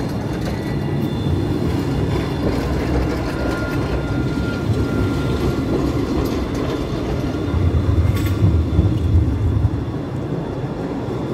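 Tram running on its rails with a steady rumble. A faint high whine comes in a few seconds in, and the rumble grows louder about eight seconds in, with a click.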